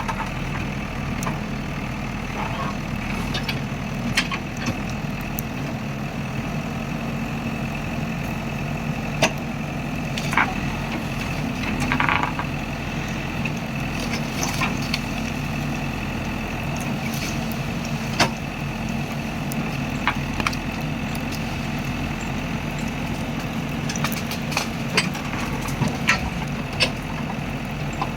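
JCB earth-mover's diesel engine running steadily, with scattered sharp clicks and knocks.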